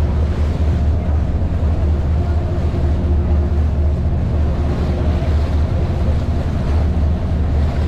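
Venetian public ferry (ACTV vaporetto) engine running at a steady cruising drone, heard from aboard the boat: a constant deep rumble with a faint steady hum above it.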